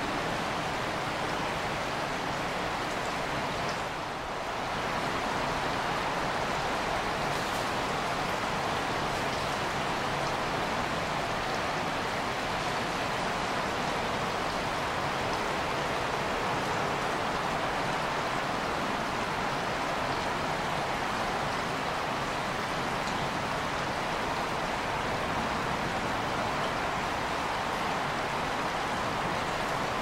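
Steady rushing of flowing creek water, briefly softer about four seconds in.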